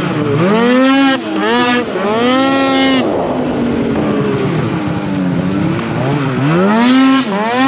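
Snowmobile engine running under throttle on the move, its pitch climbing and dropping several times as the throttle is opened and eased off: it rises over the first second or so, rises again and holds, settles lower in the middle, then climbs once more near the end.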